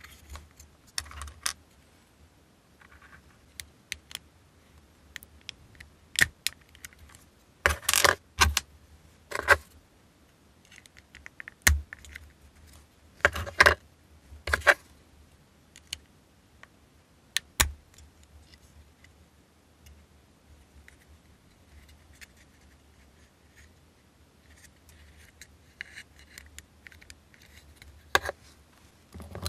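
Small hard plastic model-kit parts handled and pressed together by hand: scattered light clicks and rattles, with short clusters of louder clicks about a quarter and about halfway through.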